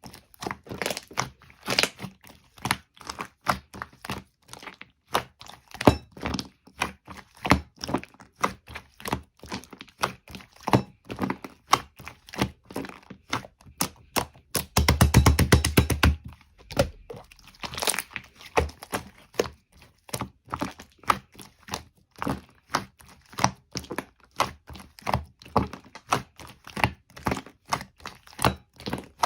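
Walnut shells knocking and cracking in a long run of sharp clicks, a few each second, with a dense rattle lasting about a second and a half midway.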